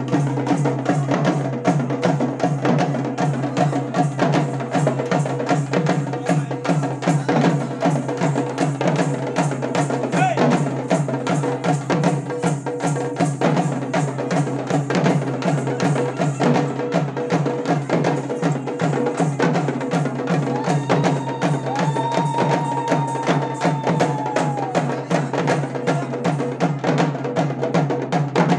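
Folk drums, barrel drums slung from the players' necks, beaten together in a fast, steady rhythm, with a steady low ringing tone underneath.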